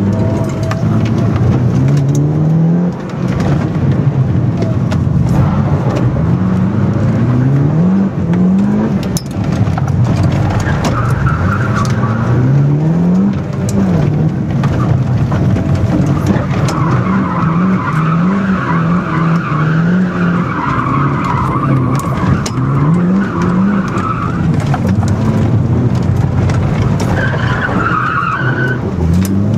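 Mitsubishi Lancer Evolution's turbocharged four-cylinder engine, heard from inside the cabin, revving hard and climbing through the gears again and again, dropping back at each shift. Several long stretches of tyre squeal and scrabbling come as the car slides through corners.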